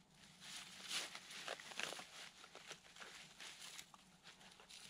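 Dry grass rustling and crackling faintly as hands twist and tuck it into a bird's-nest tinder bundle, in a run of short, irregular crackles.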